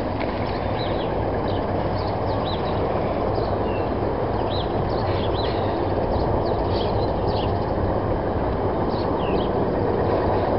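Small birds chirping again and again over a steady low rumble.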